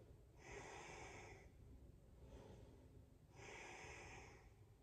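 Faint, slow breathing from a woman holding a yoga pose: two long breaths, each about a second, roughly three seconds apart.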